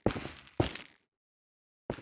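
Sharp knocks about two a second, each with a short decaying tail. About a second in the sound cuts to dead silence, and another knock comes near the end.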